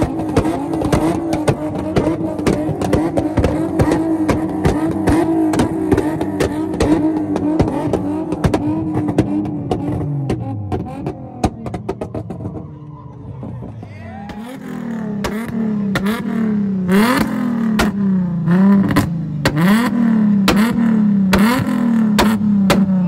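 Nissan 370Z's V6 held at high revs through its exhaust, thick with rapid crackling pops, the revs falling away about ten seconds in. Then a Nissan 350Z's V6 is revved in quick throttle blips, about one a second.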